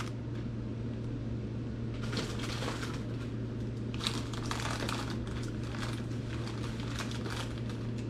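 Plastic food packets crinkling and rustling now and then as they are handled and set down, over a steady low hum.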